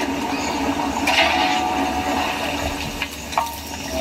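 Hot liquid bubbling and hissing steadily in a large iron kadai as small candy pieces cook in it.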